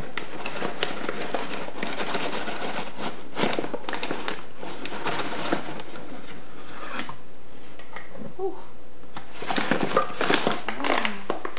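Paper flour bag crinkling and flour being scooped out and poured into a mixing bowl: a run of rustles and scrapes that eases off about seven seconds in, then picks up again.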